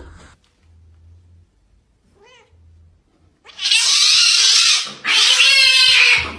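A cat makes a short faint call, then two loud, harsh, breathy yowls of about a second each, starting a little past halfway.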